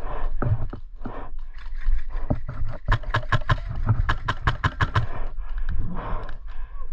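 Rustling and scraping movement noise from an airsoft player's gear, with a quick even run of about ten sharp clicks, about five a second, in the middle.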